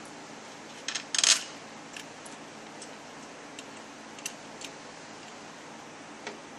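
Small metallic clicks and clinks as bolts and a shift solenoid are handled and fitted onto an automatic transmission's metal valve body. A short burst of clatter comes about a second in, followed by a few light single ticks.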